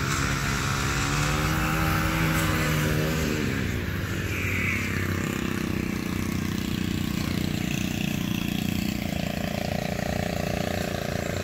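Small petrol engine of landscaping equipment running nearby. Its pitch drops about three to four seconds in, then holds steady.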